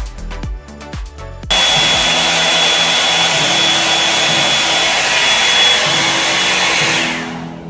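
Electronic dance music with a kick beat, then about one and a half seconds in a hot-air round brush (hair dryer brush) switches on and blows with a steady loud hiss and a high whine. It fades out near the end as it stops.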